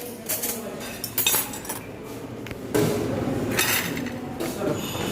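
Dishes and cutlery clinking: several short, separate clinks of plates and utensils in a buffet dining area.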